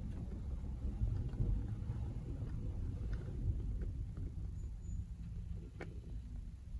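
Low, steady rumble inside a car cabin, with a few faint clicks and one sharper click near the end.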